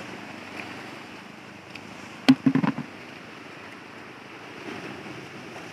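Surf washing against sea rocks, a steady rushing noise with wind on the microphone. A little over two seconds in, one sharp knock followed by a brief cluster of short thumps.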